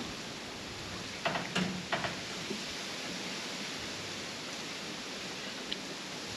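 Steady background hiss with a few short crackling clicks between one and two seconds in, from the boiled crawfish boil food being handled on the table.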